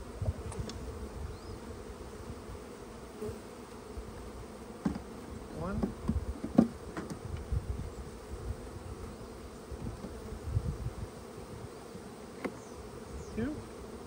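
Honeybees buzzing around newly installed hives: a steady hum from the swarm, with single bees flying close past and their buzz rising and falling in pitch. A few light knocks come through among them.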